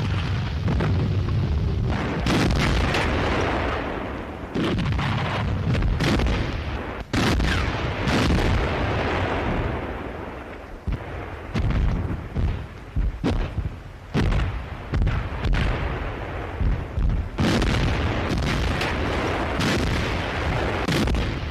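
Battle sounds: many sharp gunshots and heavy booms at irregular intervals, each trailing off in a long low rumble.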